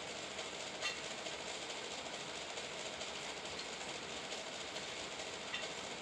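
Steady background hiss, with a faint click about a second in and another near the end.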